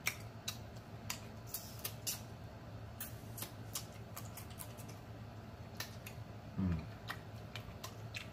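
A person eating snow crab legs: irregular sharp clicks of lips smacking and shell pieces cracking, with one short low "mm" of enjoyment about six and a half seconds in.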